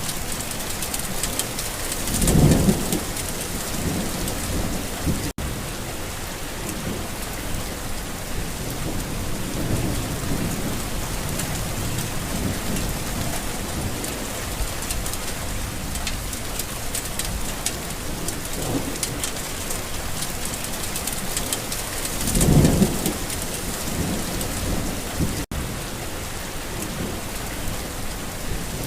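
Steady rain falling on a garden, with thunder rumbling twice: a short loud roll about two seconds in and another near the end. The sound drops out for an instant twice.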